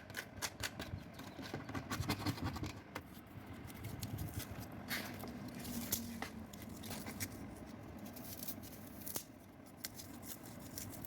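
Hand scraping and tapping at the rusted bottom edge of a refrigerator door's steel sheet, knocking off corroded metal: a busy run of irregular sharp clicks and scratchy scrapes.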